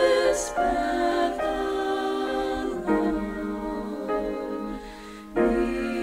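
A vocal trio singing a slow Christmas song with accompaniment, in sustained notes. It softens about four seconds in, and a fuller passage comes in near the end.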